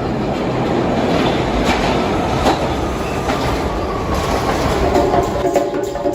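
Subway train running through the station: a loud, steady rumble with a thin wheel squeal about midway. Near the end, music starts to come in over it.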